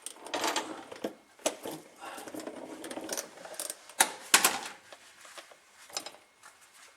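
Hand tools and loose metal parts being handled on a workbench or engine: a run of rattling and clicks, with two sharp knocks a little after four seconds in.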